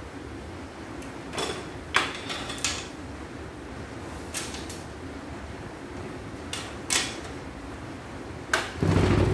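Plastic clicks and knocks as the housing parts of a portable embroidery machine are pulled apart and handled, a few scattered sharp clacks. Near the end comes a heavier, longer low thump as the machine is set down on the wooden bench.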